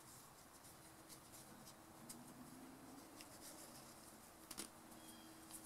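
Near silence, with faint rustles and small clicks, and a light tap about halfway through, as a nylon starter rope is fed through a plastic pull handle.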